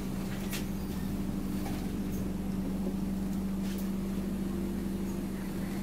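Scania OmniCity double-decker bus heard from inside the passenger saloon: a steady diesel drone with a constant hum, and a few light rattles or clicks.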